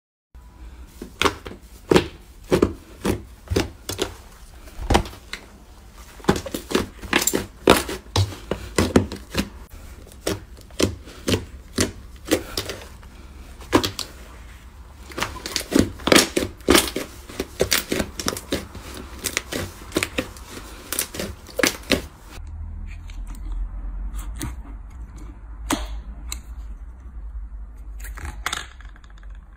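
Slime being worked by hand, giving a dense run of sharp crackling clicks and pops. About two-thirds of the way through it changes to a quieter stretch with a low rumble and only occasional clicks.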